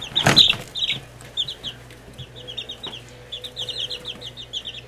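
Seventeen-day-old chicks peeping: a steady run of short, high peeps. There is a brief clatter near the start from the wire-mesh cover being set on their tub.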